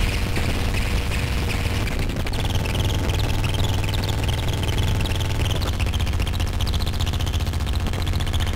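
Benjolin and fourses synthesizers playing a dense noise texture: a low buzzing drone under steady crackle and chirping high blips. Thin held tones come and go, changing about two seconds in and again about five and a half seconds in.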